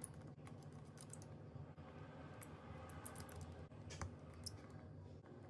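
Faint, scattered light clicks and ticks of a precision screwdriver turning a display hinge screw in a laptop's metal chassis, over a low steady hum.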